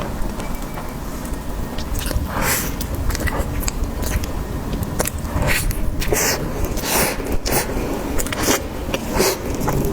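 Close-up eating: bites and chewing, with crisp noisy bursts about every second, over a steady low rumble.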